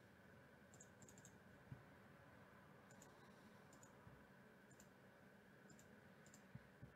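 Faint computer mouse clicks, several scattered through, some in quick pairs, over near-silent room tone with a faint steady hum. A few soft low thumps are mixed in.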